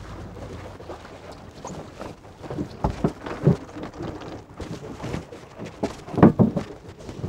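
Sea water splashing and dripping as a wet float, bamboo pole and rope are hauled out of the sea into a small boat. A pattering of drips runs through it, with heavier knocks against the hull around three seconds in and again a little after six seconds.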